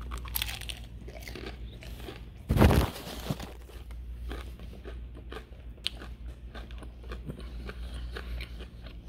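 Crunching bites and chewing of a crispy breaded fried chicken wing: many small crackles, with the loudest crunch about two and a half seconds in.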